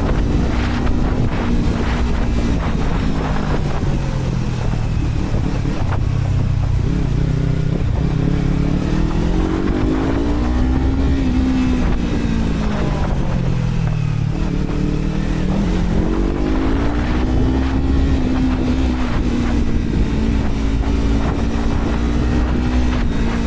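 Yamaha R3's parallel-twin engine running through a WR slip-on exhaust with the dB killer removed. The engine pitch sinks from about three to seven seconds in, climbs again, sinks around fourteen seconds, then climbs and holds steady. Wind buffets the microphone throughout.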